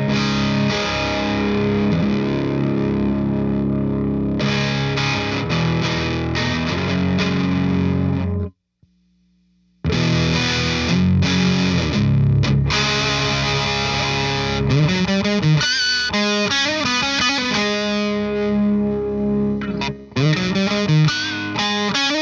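Distorted electric guitar played through a Rivera Knucklehead Reverb KR100 tube amp on its second, high-gain channel with the boost on. The sound breaks off for about a second just before the middle, and there are bent, wavering notes in the second half.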